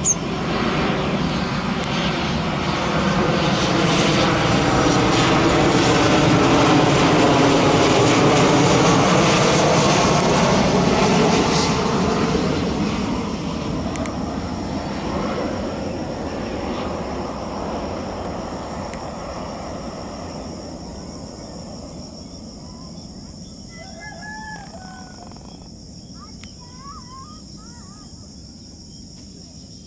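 Jet engines of a Lion Air Boeing 737 airliner on final approach, passing low overhead: the sound swells to its loudest about eight seconds in, with a sweeping whine in it, then fades away. A rooster crows faintly near the end.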